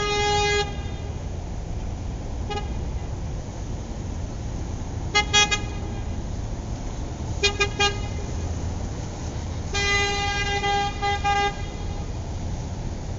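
Car horns honking over a steady low traffic rumble: a long honk that cuts off just after the start, a short tap, quick double and triple beeps, and a longer honk broken into pieces near the end.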